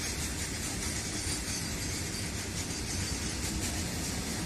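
Freight train of open steel wagons rolling past on the rails: a steady noise of wheels running on the track.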